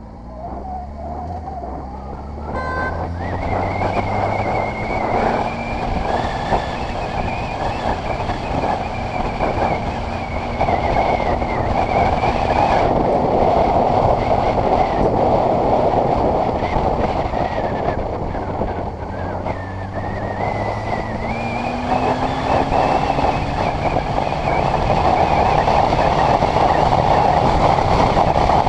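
Honda CBR600RR's inline-four engine pulling away with its note rising, then holding a steady cruise, easing off about two-thirds of the way through and picking up again, with wind rushing over the microphone that grows louder with speed.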